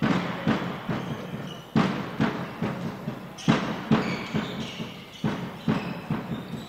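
A string of echoing thuds in a sports hall during handball play, about two to three a second, each with a short low ring.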